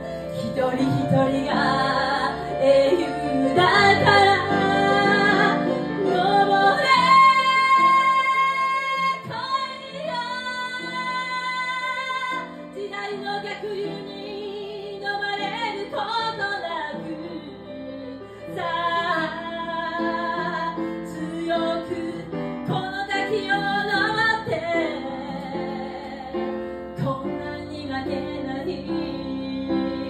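A woman singing live into a microphone, with long held notes that waver, over a keyboard accompaniment.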